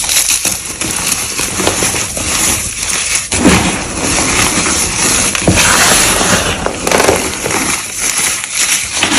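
Gym chalk being crushed and crumbled close to the microphone: dense, continuous crunching and crackling.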